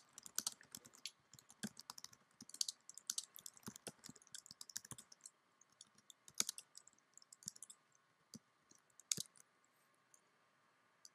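Typing on a computer keyboard: quick runs of key clicks for the first half, then sparser, with a couple of louder single keystrokes later on.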